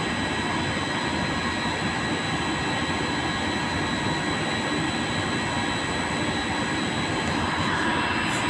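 Steady machine drone with a hiss and several faint high whining tones, unchanged throughout: the running noise of TIG welding equipment.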